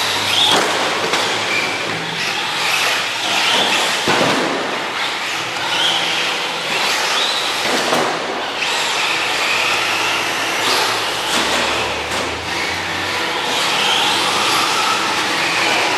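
Traxxas Rally 1/10-scale RC car being driven on a dirt track: its electric motor whines up and down with the throttle over a steady hiss of tyres on dirt, with an occasional knock.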